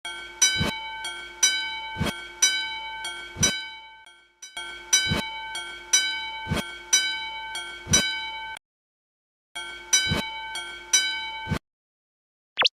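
Japanese railway level-crossing warning bell ringing its "kan-kan" alarm at about two strikes a second, in three runs with short pauses about four and nine seconds in, stopping shortly before the end.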